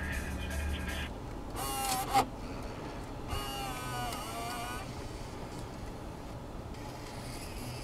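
Motors of a 2002 Lexus in-dash six-disc CD changer whirring in two short runs that waver in pitch, with a sharp click about two seconds in, as the changer tries to load a disc; the owner reports the player as broken, giving error code 3. FM radio sound cuts off about a second in, when the unit switches to CD.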